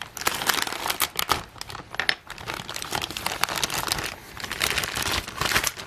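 Clear plastic bag holding a model kit's parts crinkling and rustling in irregular crackles as it is opened and handled.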